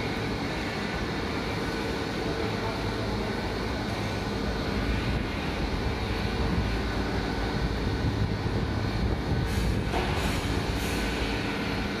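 Steady low rumble and hum of a running mesh-belt heat-treatment furnace line, with a few faint steady tones; about ten seconds in a hiss comes in on top.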